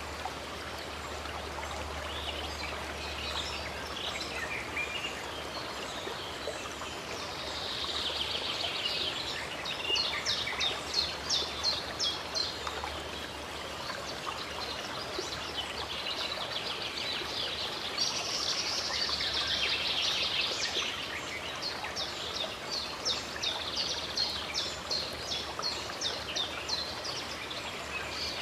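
Running water of a stream with birds singing over it. Twice, about a third of the way in and again in the second half, a bird gives a run of fast, repeated high chirps.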